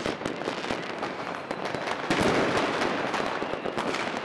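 Many fireworks and firecrackers going off together: a dense stream of bangs and crackling, growing louder and thicker about two seconds in.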